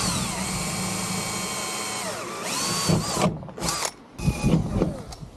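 Cordless drill with a 3 mm bit running under load: a steady motor whine that winds down about two seconds in, starts again briefly, then a few short trigger bursts near the end.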